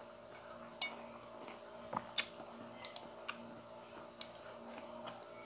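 Eating sounds: a plastic spoon clicking against a plate and mouth sounds of chewing, heard as a scattered series of short soft clicks over a faint steady hum.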